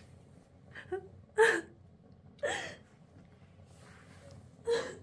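A woman sniffing at clothing, her face pressed into the fabric: four short, sharp breaths in, the second the loudest.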